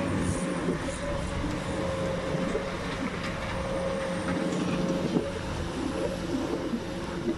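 Tracked hydraulic demolition excavators running: a steady diesel engine drone with a held hydraulic whine, broken by a few sharp knocks as the grab works the rubble and brickwork.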